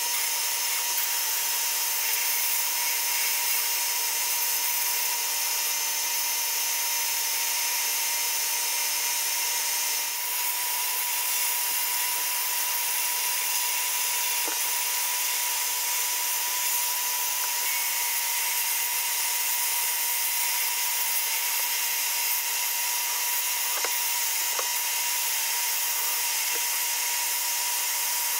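Sandblasting cabinet's blast gun hissing steadily as abrasive media strips red paint off a steel Tonka truck part, with a steady whine underneath and a few faint ticks.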